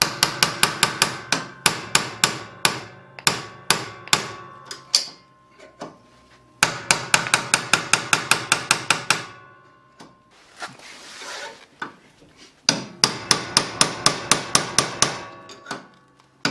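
Hammer rapidly tapping a steel drift punch to drive a worn ball bearing out of a lawn tractor's front steering joint: runs of quick, ringing metal strikes, about six a second, broken by short pauses.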